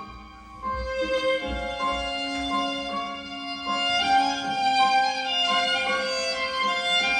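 Violin music: a slow bowed melody of long held notes, dipping briefly at the start and coming back in under a second.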